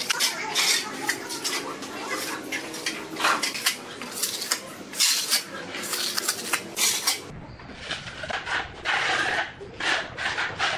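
Steel trowel scraping over wet cement screed on a countertop, repeated smoothing strokes about two a second. About seven seconds in the strokes become softer and duller.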